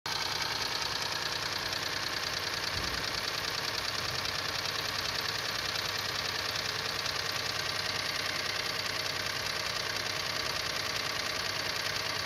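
Ford 1.0 EcoBoost three-cylinder turbocharged engine idling steadily with a rapid knock. This is the knock of oil starvation, which comes when pieces of the breaking-up wet timing belt clog the sump strainer.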